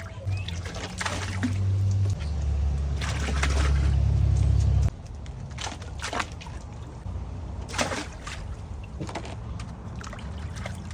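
Water sloshing and splashing in a cold-plunge tub as ice is pushed into it, with irregular short splashes and knocks. A heavy low rumble runs under it for the first five seconds or so and then cuts off suddenly.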